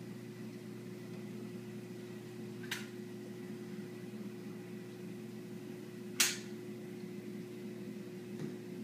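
Steady hum of reef-aquarium pumps running. Two sharp clicks cut through it, one about three seconds in and a louder one about six seconds in.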